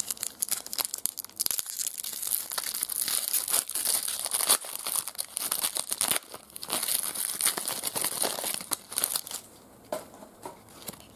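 Foil wrapper of a trading-card pack being torn open and crinkled by hand: a dense run of crackling that dies down about nine and a half seconds in.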